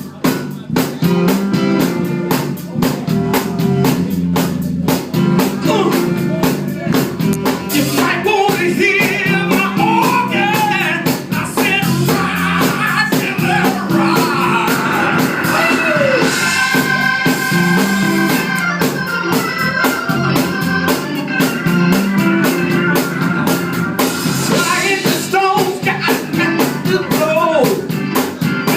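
A band song: a steady drum beat and bass, with a singing voice coming in about eight seconds in.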